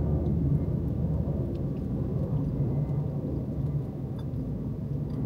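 Steady low rumble inside a parked car with the engine idling, with a few faint chewing clicks.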